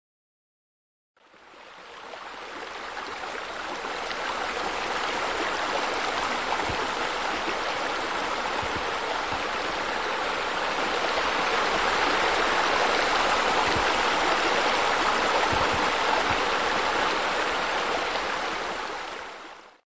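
Steady rush of running, splashing water, as from pool bubblers and a spillover. It fades in about a second in, swells over the next few seconds, and fades out near the end.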